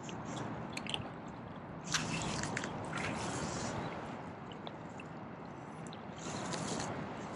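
Shallow water sloshing and splashing, swelling louder twice, with scattered small clicks.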